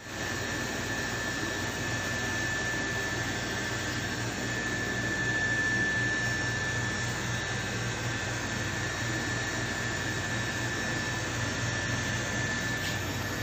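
Steady machine noise: an even hum with a thin high whine held over it.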